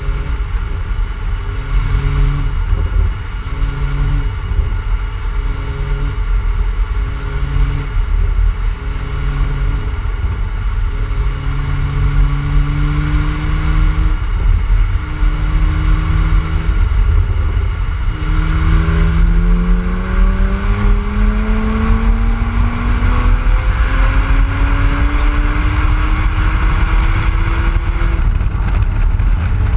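BMW E82 135i's twin-turbo inline-six running through a BMW Performance exhaust while the car is driven, with heavy wind rumble on an outside-mounted microphone. The exhaust note swells and fades every couple of seconds, then about two-thirds in it climbs steadily in pitch as the car accelerates.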